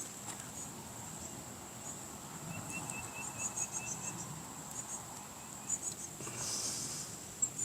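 Insects chirping steadily in a high, pulsing chorus, with a short run of quick, lower chirps about two and a half seconds in.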